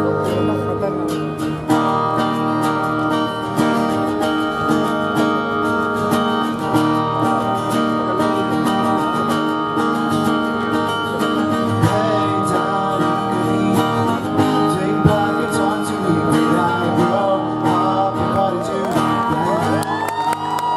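Two acoustic guitars strumming chords in a song's instrumental opening, with a voice beginning to sing near the end.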